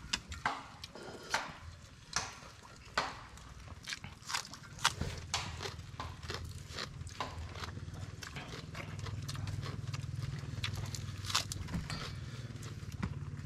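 Close-up eating sounds: irregular wet smacks and slurps of people chewing and slurping spicy noodles, about one or two a second. A low steady hum comes in about halfway through.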